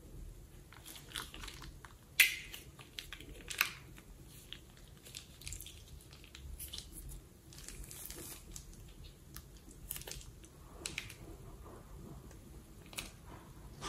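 Sticky squelching and crackling as slime is squeezed from a plastic piping bag and the bag is pressed into the slime, with irregular clicks and a couple of sharper pops, the loudest about two seconds in.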